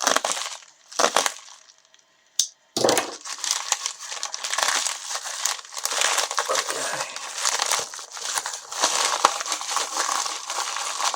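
A parcel's packaging being handled and unwrapped: a few soft knocks and a sharp click, then steady crinkling and rustling of wrapping from about three seconds in.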